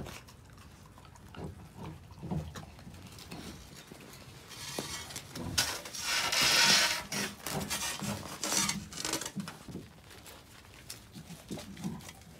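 A black Canadian wolf growling low in short bursts, then gnawing and scraping at a frozen block of meat in crackling, crunching noise that is loudest about six to seven seconds in.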